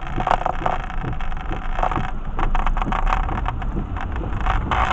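Car cabin noise while driving slowly on a rain-soaked road: a steady low engine and tyre rumble, with irregular light taps and clicks through the middle.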